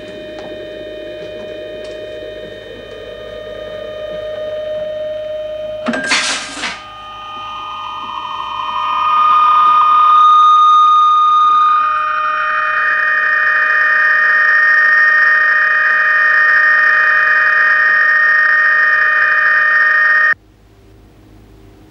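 Electronic science-fiction sound effect of a spaceship drive powering up to escape velocity. Several steady electronic tones play, with a brief noisy burst about six seconds in. A tone then glides upward into a loud, steady high-pitched hum, which cuts off suddenly near the end.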